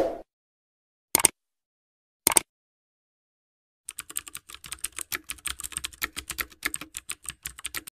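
Keyboard-typing sound effect for text typed onto the screen. There are two single keystrokes about a second apart, then a fast run of keystrokes from about halfway through to the end. A brief hit sounds at the very start.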